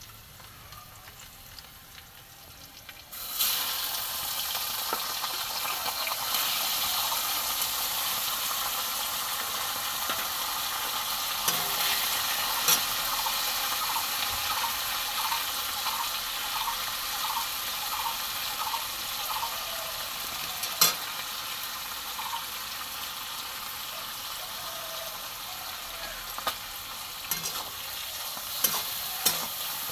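Food frying in hot oil in a pan: a steady sizzle that starts loudly about three seconds in and keeps going, with occasional clicks of a spatula stirring against the pan.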